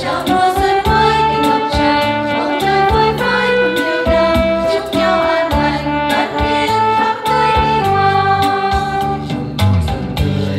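Small choir singing a hymn with electronic keyboard accompaniment, long held melody notes over a steady beat.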